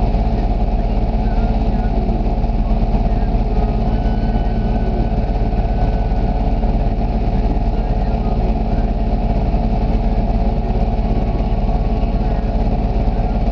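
ATV engine idling steadily.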